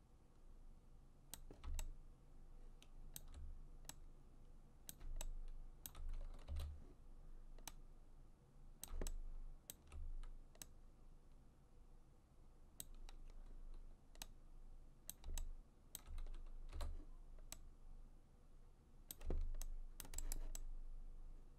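Faint, irregular clicks of a computer mouse and keyboard keys being pressed, one every second or so, some with a soft low thump, and a quick run of clicks near the end.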